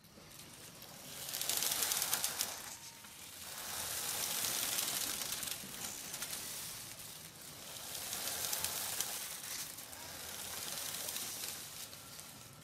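Creaking mooring ropes of boats tied up at a dock: a hissing, crackly sound that swells and fades every few seconds.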